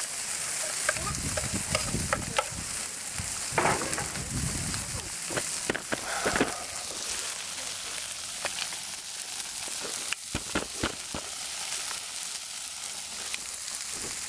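Smash burger patties and freshly added diced onion sizzling on a Blackstone propane steel griddle: a steady hiss with scattered sharp clicks and pops.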